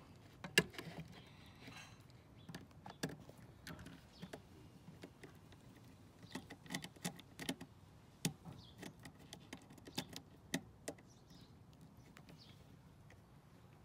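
A small screwdriver clicking and tapping in the screw terminals of an amplifier board as speaker wires are clamped down, with the board and wire handled. The clicks are light and irregular, the strongest about half a second in.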